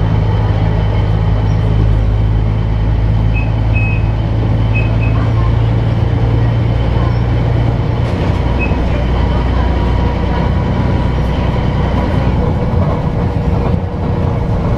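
Diesel engine and drivetrain of an articulated city bus, heard from inside the passenger cabin while it is being driven: a steady low drone with road noise. The engine note shifts about 12 seconds in.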